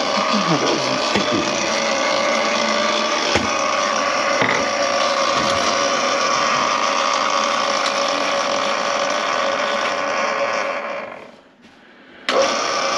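A motor-driven power tool running steadily with a steady hum. It winds down about eleven seconds in, is off for about a second, then starts again abruptly.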